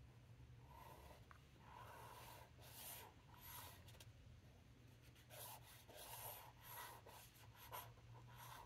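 Faint, soft strokes of a wet flat paintbrush brushing ink across notebook paper, a series of short swishes, over a low steady hum.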